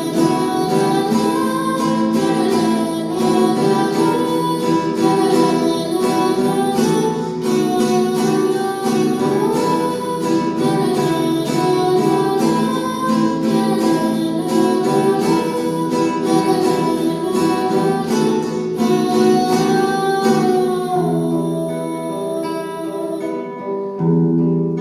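Instrumental break of a rehearsed song: strummed acoustic guitar with a wavering melody line over it and a light steady rhythm, settling onto held chords near the end.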